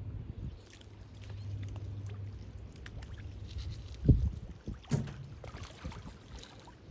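Water splashing and sloshing where turtles are feeding, with two louder low thumps about four and five seconds in.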